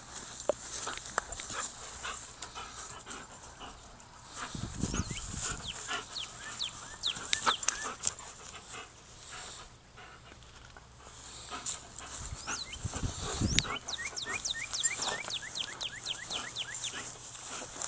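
German Shepherd panting close to the phone during stick play, with runs of short, high squeaky notes, several a second, in the middle and again near the end.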